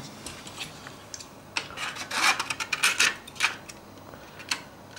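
Cream cheese tub being opened: its plastic and foil packaging rubbed and rustled in several short rasping bursts, then a single click near the end.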